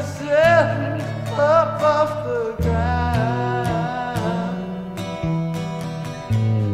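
Music: acoustic guitar and bass guitar playing, with a singing voice holding long, wavering notes through the first few seconds. The bass moves to a new note several times.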